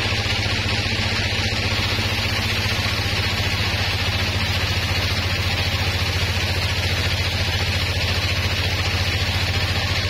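Sawmill machinery running steadily: a constant engine-like drone with a fast even pulse, under a steady hiss.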